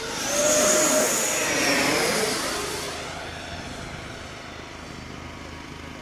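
Sebart Mini Avanti model jet's 90 mm WEMOTEC electric ducted fan whining in a fast pass. It is loudest in the first two seconds, its pitch falls as it goes by, and then it fades.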